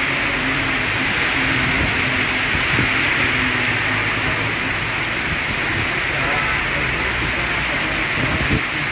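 Heavy rain pouring onto a waterlogged street, a steady, even hiss.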